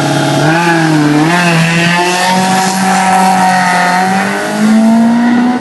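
Rally car's engine held at steady high revs, then launching hard from the start line and accelerating away, its pitch climbing in steps and loudest near the end.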